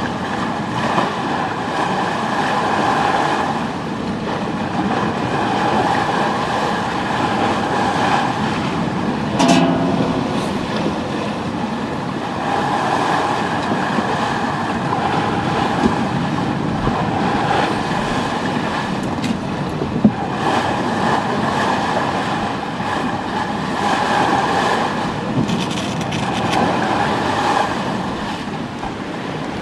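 Aboard a schooner under way: a steady rushing noise with a whining hum that swells and fades every few seconds, and a single knock about nine and a half seconds in.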